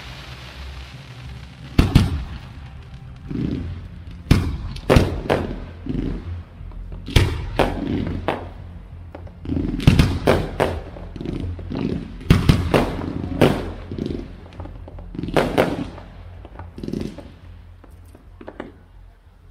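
Aerial fireworks display: shells bursting in an irregular string of sharp bangs, about one every half second to two seconds, each trailing off briefly.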